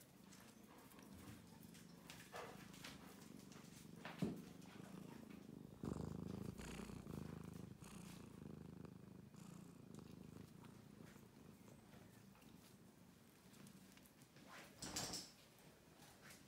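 Domestic cat purring steadily, heard up close. A brief knock comes about four seconds in, and a short rustle comes near the end.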